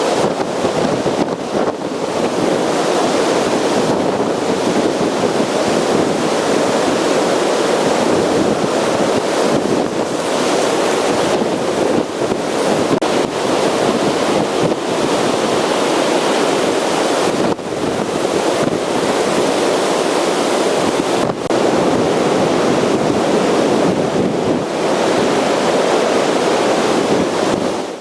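Large storm waves breaking on the lakeshore in a strong windstorm, a steady rush of surf with wind buffeting the microphone, dipping briefly a few times.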